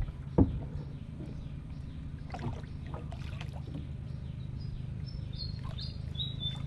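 A small boat being poled along a canal: a sharp knock of the pole right at the start and another just after, then fainter knocks over a steady low hum. Near the end a bird gives several short, high chirps, each a little lower than the last.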